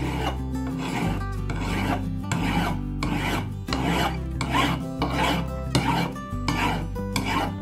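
Flat hand file stroked back and forth across a steel hatchet head, about two strokes a second.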